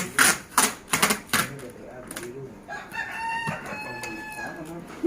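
A quick run of sharp knocks in the first second and a half, then a Betet fighting rooster crows once, a long held call of about two seconds.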